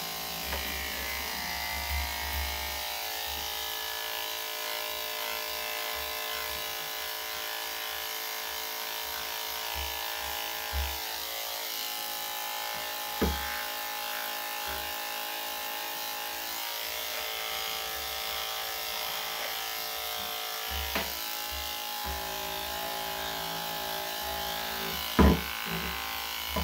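Electric dog grooming clippers running steadily as they cut a Shih Tzu's coat, with a few short knocks, the loudest one near the end.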